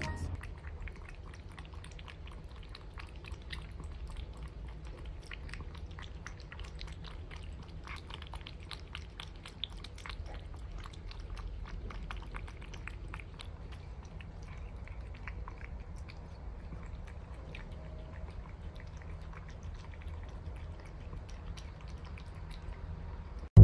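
Cats eating from their bowls: a continuous run of small, irregular crunching clicks of chewing, over a steady low hum.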